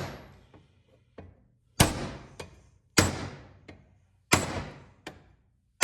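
Hammer blows on a stuck metal part of a Lawn-Boy mower, to knock it free. There are four heavy strikes over the few seconds, each ringing briefly and followed by a lighter rebound tap.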